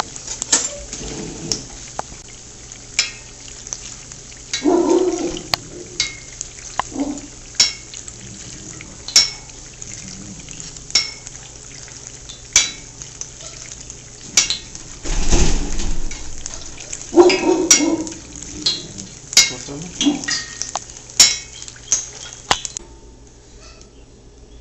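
Battered corn dog deep-frying in hot oil in a pan: a steady sizzle with many sharp irregular pops and metallic clinks against the pan, and a few longer scraping bursts. The sizzle drops away near the end.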